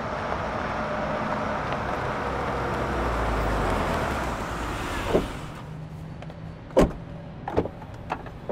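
A Mercedes luxury sedan drives up and comes to a stop, its engine and tyre noise swelling and then dying away. This is followed by a few sharp clicks and knocks as its rear door is opened, the loudest about seven seconds in.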